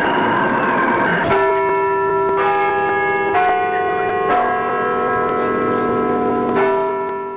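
Intro jingle music for the show's opening titles: a dense whooshing sweep, then bell-like chimed chords struck about once a second, ringing on between strikes before cutting off at the end.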